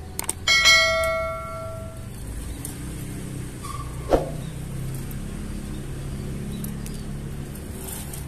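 Subscribe-button sound effect: a click, then a bright bell-like chime that rings out about half a second in and fades over a second and a half. A short knock comes about four seconds in, over a low steady hum.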